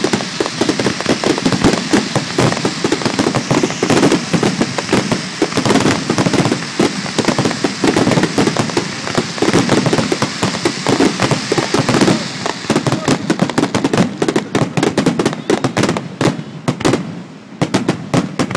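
A dense fireworks barrage: many shells and low bursts going off on top of one another as a continuous mass of bangs and crackling. It thins out to separate bangs near the end.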